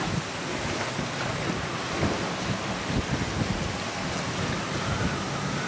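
Steady rushing of strong wind and water around a sailboat under sail in 17 to 20 knots of wind, with uneven low buffeting from gusts on the microphone.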